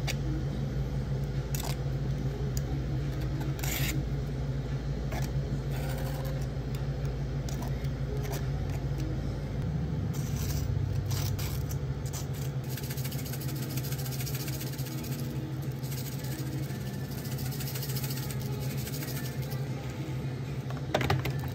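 Café work sounds: a steady low machine hum with scattered clinks, scrapes and rattles of utensils and containers. A deeper rumble under the hum drops away about ten seconds in.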